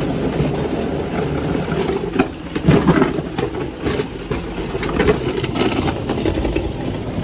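Tractor engine running under load as it drags a rear-mounted steel scraper blade (karaha) through loose soil, with irregular clanks and rattles from the scraper frame.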